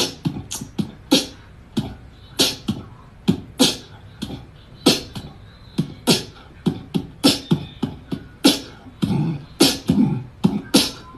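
Beatbox-style percussion: a loose rhythm of sharp clicks and low thumps, about two strokes a second.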